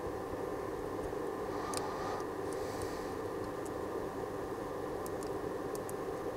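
Steady machine hum holding several even tones, with a few faint light ticks scattered through it.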